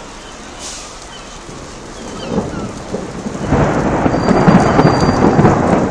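Thunder rumbling during a heavy thunderstorm. The rumble swells from about two seconds in and turns into a loud, crackling roll over the last couple of seconds.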